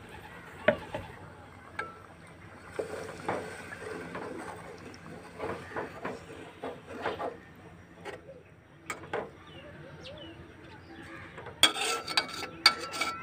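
Metal spoon stirring a thin curry in a metal cooking pot: liquid sloshing with scattered scrapes and knocks, then a quick run of sharp, ringing clinks of the spoon against the pot near the end.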